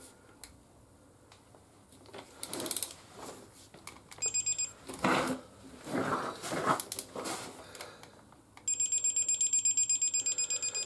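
Digital torque wrench beeping rapidly, about nine high beeps a second, starting about two-thirds of the way in: its signal that a wheel bolt has reached the set 60 Nm. Before that, the wrench clicks and scrapes on the bolt, with a brief beep near the middle.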